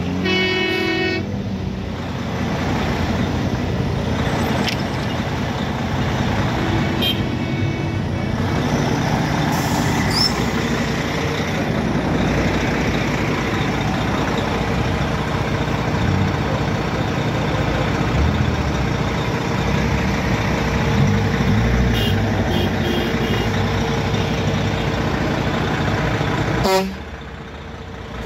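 Heavy trucks running along the road with a steady engine and traffic noise; a horn blows for about a second and a half at the start, with a few shorter horn toots later. The sound drops off sharply near the end.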